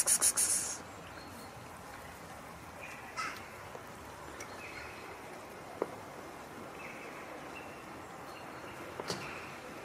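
Stray cats eating dry kibble from a plastic tray: a quick run of sharp crunches and clicks at the start, then only a few faint clicks over quiet outdoor background.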